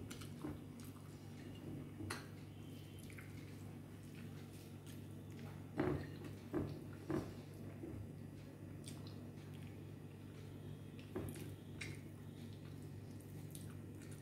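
Eating by hand: fingers mixing and gathering rice on a ceramic plate, with scattered soft clicks and wet mouth sounds of chewing, and three louder clicks about six to seven seconds in. A steady low hum sits underneath.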